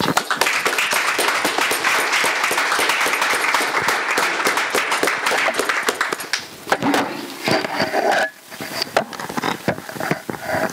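Audience applauding, a dense patter of many hands clapping that thins to scattered claps after about six and a half seconds.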